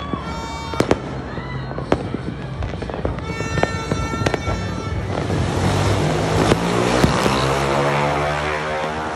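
Fireworks going off: sharp bangs at irregular moments over a continuous crackle, which thickens into a dense crackling from about halfway.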